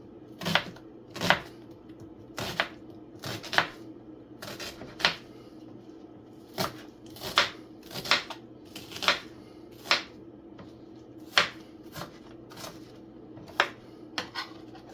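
Knife cutting an onion on a cutting board: sharp, irregular knocks, one or two a second, sometimes in quick pairs. A steady low hum runs underneath.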